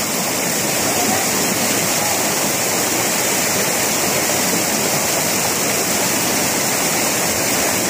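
Mountain river cascading over granite boulders into a pool: a steady rush of white water.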